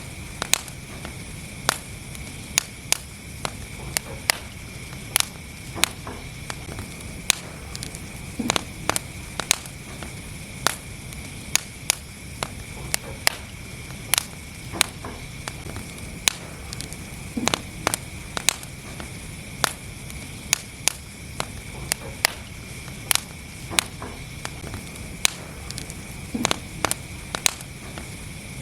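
Wood fire burning in a fireplace: sharp, irregular crackles and pops, about one or two a second, over a steady low rumble and hiss.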